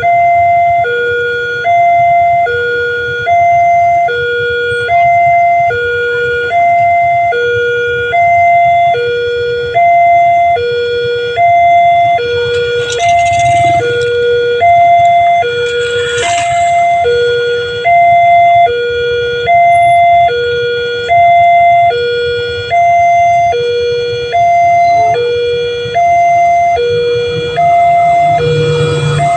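Railway level-crossing warning alarm sounding a steady electronic two-tone signal, a low and a high tone alternating about two cycles every three seconds, warning of an approaching train.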